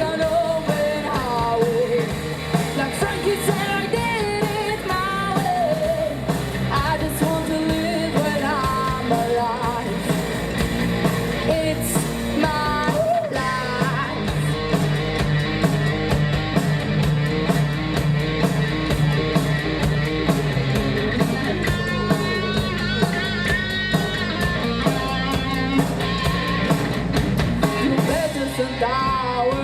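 Live rock band playing loudly: drums, bass and electric guitar under a lead line that bends and wavers in pitch.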